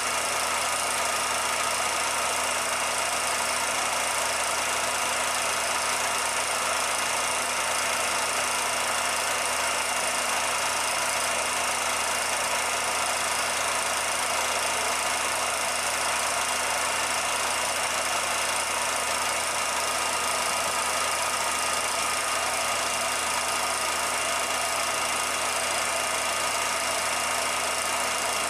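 Steady machine-like hum and hiss with a few constant whining tones, unchanging throughout.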